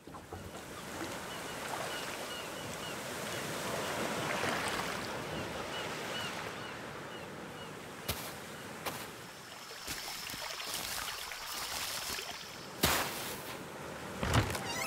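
Ocean surf washing steadily on a beach, with a string of short high bird calls in the first few seconds. Later come a few separate soft thumps and a whoosh near the end.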